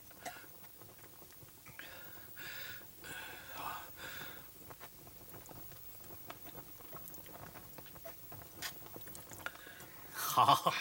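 Quiet sounds of a cup of wine being drunk down, soft swallowing and mouth noises with faint small clicks, loudest about two to four seconds in. A man's voice breaks in loudly near the end.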